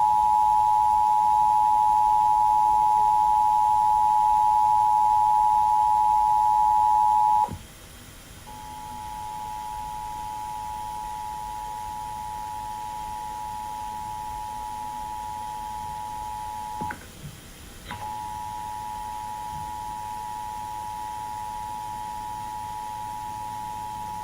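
EAS attention signal: the two-tone alert of 853 and 960 Hz sounded together as one steady electronic tone. It sounds loud for about seven and a half seconds and cuts off. About a second later it returns at a lower level, breaks off again with a click about eight seconds later, then resumes.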